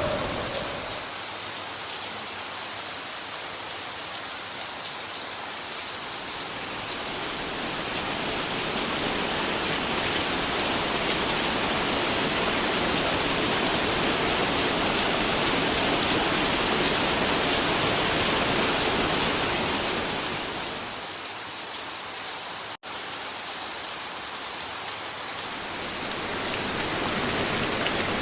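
Moderate rain falling, a steady even hiss of drops on surfaces that eases off somewhat twice before picking up again.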